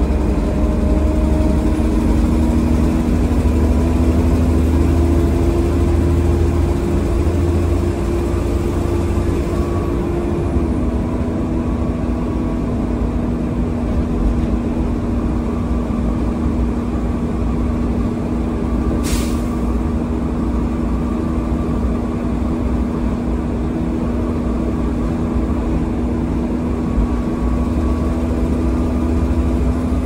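Volvo B7TL double-decker bus with a blown exhaust, its engine running steadily under way as heard from the upper deck. The low rumble eases and the engine note changes about a third of the way in. A short hiss of air comes once, about two-thirds in.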